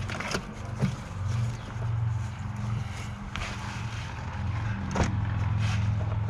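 Hand tools and metal engine parts clinking and knocking a few times during engine disassembly, over a steady low hum.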